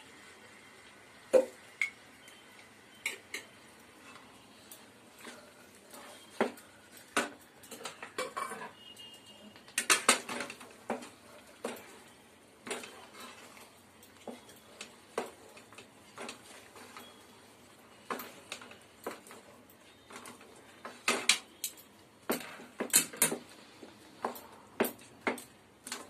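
Metal spatula scraping and clinking against a kadai as thick rava kichadi is stirred and turned. Irregular clinks and scrapes, with denser, louder runs about ten seconds in and again a little past twenty seconds.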